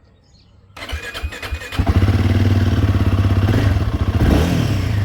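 Royal Enfield Himalayan 452's single-cylinder engine being started: the starter cranks for about a second, then the engine catches and runs steadily at idle.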